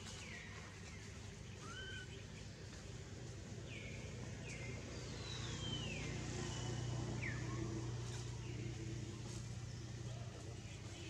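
Birds calling in the trees: short, high whistled notes that slide downward in pitch, repeated every second or two, with one longer falling note about five seconds in. A low steady hum runs underneath and swells in the middle.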